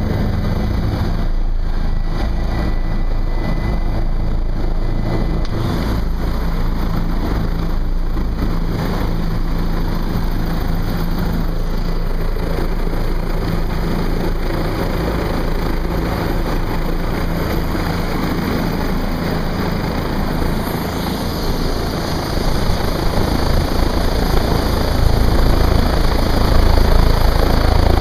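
Bell 407 helicopter running on the helipad, its turbine and rotor making a loud steady noise, heard from inside the cabin. It grows louder and hissier over the last few seconds.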